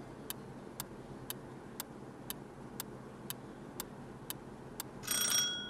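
Clock-ticking sound effect for a quiz countdown timer, with sharp ticks about two a second. About five seconds in, a short louder ringing sound with several steady tones ends the countdown.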